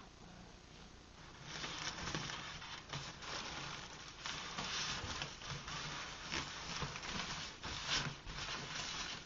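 Plastic air-cushion packing rustling and crinkling as it is handled and pulled out of a cardboard box, starting about a second and a half in, with a sharp crinkle near the end.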